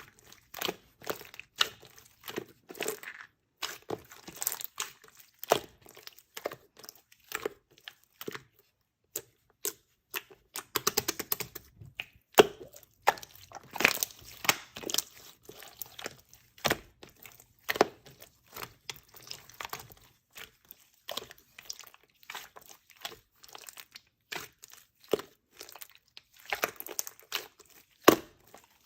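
Slime being squeezed and stretched by hand, making irregular sharp crackles and pops, with denser runs of crackling now and then.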